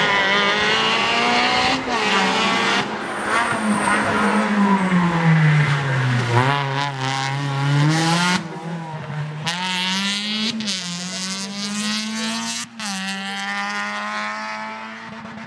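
Peugeot 206 rally car engine at full race pace: the revs drop to a low point about six seconds in, then climb again in steps through several gear changes as the car accelerates away, growing fainter near the end.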